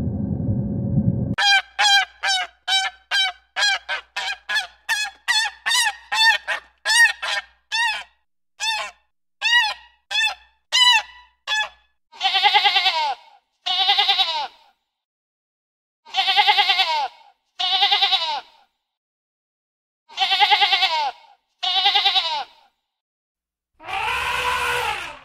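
Domestic ducks and geese calling: a quick run of short calls, about two a second, then longer honks, mostly in pairs.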